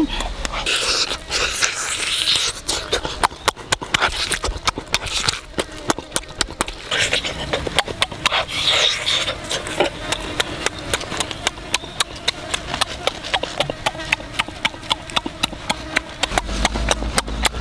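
Close-up eating of roasted pig leg: wet chewing and lip smacks, many quick clicks a second, with sniffs and breathing through the nose.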